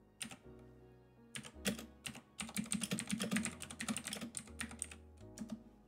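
Computer keyboard typing: a few separate keystrokes, then a run of quick typing for about two and a half seconds in the middle, with soft background music underneath.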